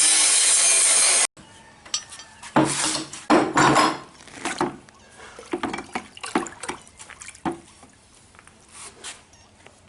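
Four-inch angle grinder working a steel knife blade: a loud, steady grinding noise that cuts off abruptly about a second in. Irregular metallic clinks and knocks of the blade and tools being handled follow.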